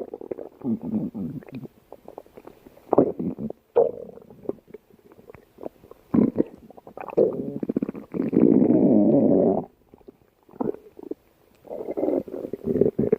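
Human stomach growling from hunger: a run of irregular growls with short gaps between them, including one long, steady growl of almost two seconds about eight seconds in.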